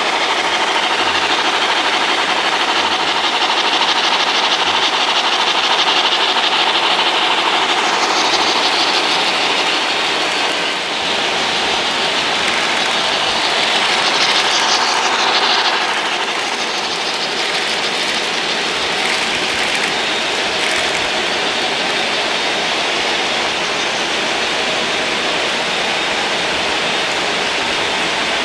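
Model steam locomotives running on a model railway layout: a steady whirring and rattling of small electric motors and metal wheels on the track. It grows a little louder around the middle as a train passes close, then eases off.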